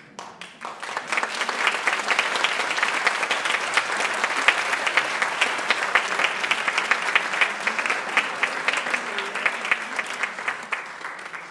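Audience applauding, many hands clapping together; it builds over the first second or two and tapers off near the end.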